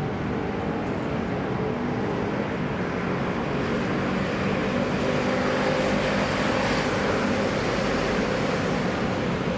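Steady city road-traffic noise with an engine hum underneath, swelling slightly about halfway through.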